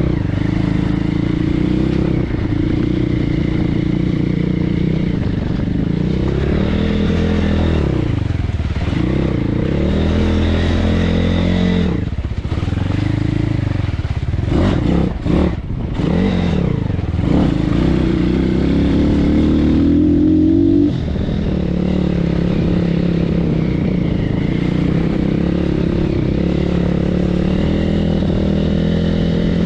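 BSE PH 150 pit bike's 150 cc single-cylinder four-stroke engine under way off-road, revs rising and falling again and again with the throttle. A long climb in revs about twenty seconds in cuts off suddenly.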